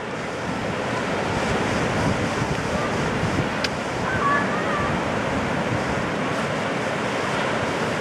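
Small ocean waves breaking and surf washing up the beach, a steady rush, with wind buffeting the microphone.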